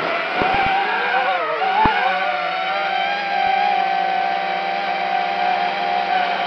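FPV quadcopter's electric motors and propellers whining in flight, the pitch dipping and wobbling with a throttle change about a second and a half in, then holding steady. A few short ticks come early on and near two seconds in.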